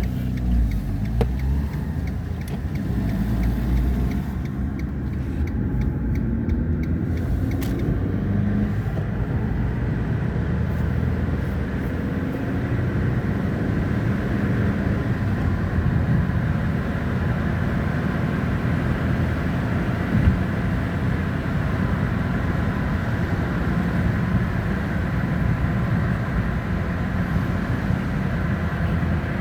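Fiat Panda 1.2 69 PS bi-fuel (LPG) four-cylinder petrol engine accelerating, its pitch rising as it revs up through the gears.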